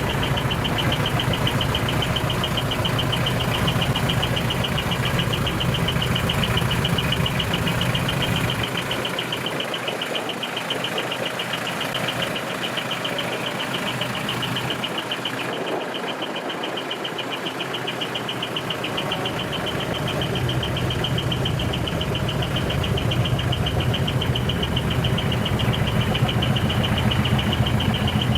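Heavy diesel truck engine running steadily. Its low rumble fades about a third of the way in and builds back up about two-thirds of the way through. A steady, fast-pulsing high tone sounds over it throughout.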